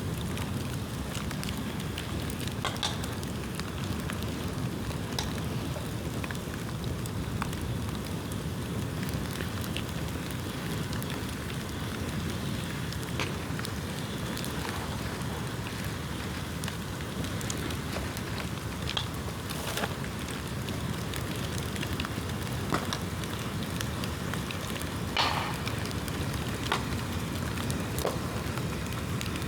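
Bonfire of dried bamboo burning: a steady rush of flames with scattered crackles and sharp pops, the loudest pop about 25 seconds in.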